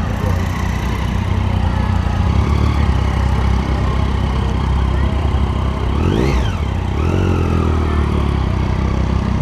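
Motorcycle engine running close by with a steady low rumble, blipped once about six seconds in, its pitch rising and falling quickly.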